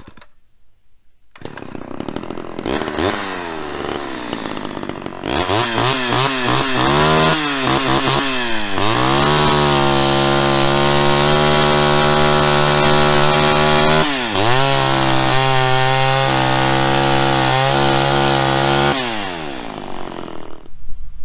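Homelite Super XL Automatic two-stroke chainsaw revved several times, then held at full throttle while cutting through a log in two long steady stretches with a brief dip between them, falling back toward idle near the end. It won't rev out all the way, which the owner puts down to the carburetor's high-speed needle needing adjustment.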